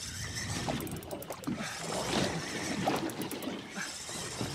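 Spinning reel being cranked by hand, its gears whirring and clicking as line is wound up from a deep drop, over the slosh of sea water against the boat.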